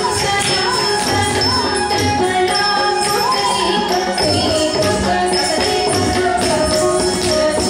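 Carnatic dance music for a Bharatanatyam Pushpanjali in raga Arabhi: a melody with sliding, curling ornaments over steady percussion and jingling bells.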